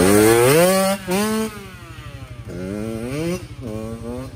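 Kawasaki KX85 two-stroke dirt bike accelerating away, its engine note rising in several climbing sweeps as it revs up through the gears. It is loudest as it passes at the start and grows fainter as it rides off.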